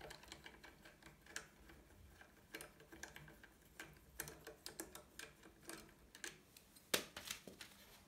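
Faint, irregular metallic clicks and taps of a hex key working a crank bolt on a BMX bottom bracket, with one louder click about seven seconds in.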